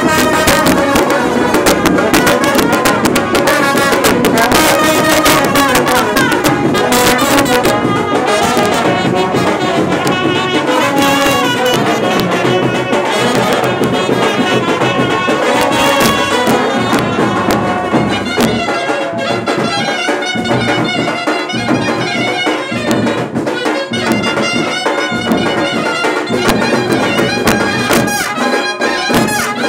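Indian brass band playing a tune on trumpets and other brass horns, with drum beats underneath.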